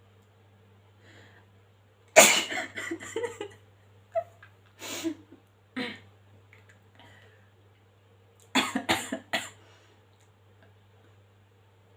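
A woman coughing and clearing her throat while a cotton bud tickles inside her nose to provoke a sneeze. There is a longer pulsing burst about two seconds in, a few short ones around four to six seconds, and three quick ones near nine seconds.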